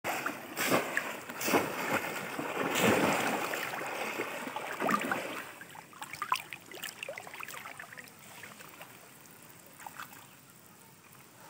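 Water splashing in a shallow stream as a person wades and beats the surface: several loud splashes in the first half, then softer splashing and trickling that fades as the hands work in the water.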